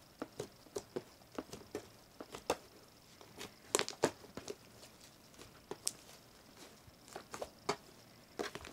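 Slime made with shaving cream and instant snow being kneaded and squeezed by hand, giving off irregular crunchy crackles and pops, a few louder ones about midway.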